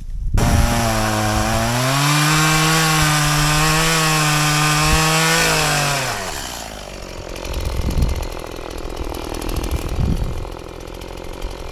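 Stihl MS180 two-stroke chainsaw revved up to full throttle about half a second in and held at high revs for about five seconds, then the revs fall away around six seconds. Lower, uneven running follows, with a couple of low thumps.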